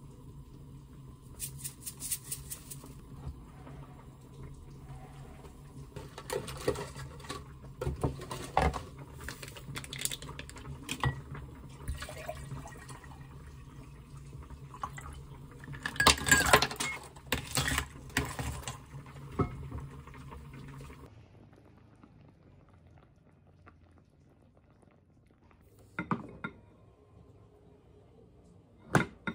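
Kitchen handling sounds: a spatula and dishes clinking, then water poured from a plastic bottle over ice into a glass. A steady low hum runs under them and stops about two-thirds of the way through. Near the end, a spoon clinks twice against a ceramic bowl.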